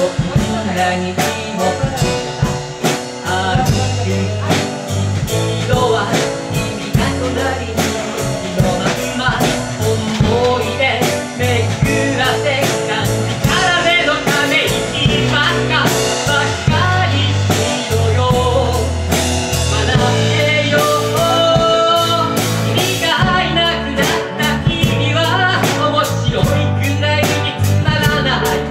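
Live band playing an instrumental passage: acoustic guitar, drum kit keeping a steady beat, keyboard, and bass notes moving underneath.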